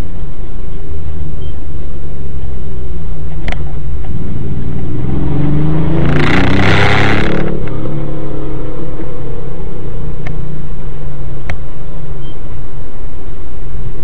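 A dashcam car's engine and road noise, heard from inside the cabin, loud and distorted. About six seconds in, a louder rush of noise with engine tones rising then falling as another vehicle passes close, lasting about a second and a half. A few sharp ticks are scattered through.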